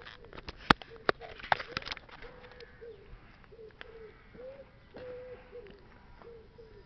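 A pigeon cooing over and over in short, wavering phrases. Several sharp clicks come in the first two seconds.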